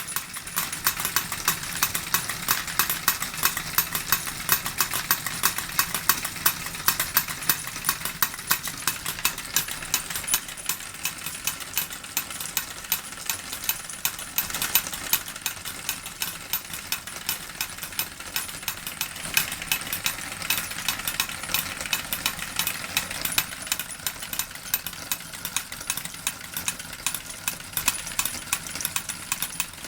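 Model steam engine driving two miniature forging hammers: a rapid, steady clatter of the running engine and linkage, with the hammers knocking regularly a few times a second.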